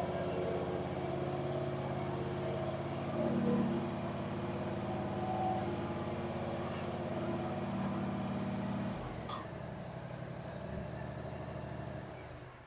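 Exmark mower's engine running steadily on a test run after a hydrostat drive pulley and belt replacement, working as it should. It gets louder briefly about three seconds in, drops lower about nine seconds in, and dies away near the end.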